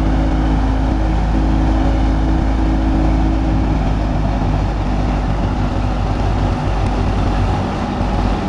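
Massey Ferguson 240 tractor's three-cylinder diesel running steadily under load, driving a wheat thresher through its PTO shaft. The thresher's drum and fan add a dense, even rush over the engine's drone.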